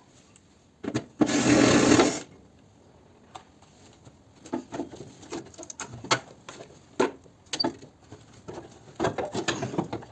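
Hand tools at work on an engine during spark-plug removal: a loud one-second rush of hiss about a second in, then scattered metallic clicks and knocks, bunching together near the end.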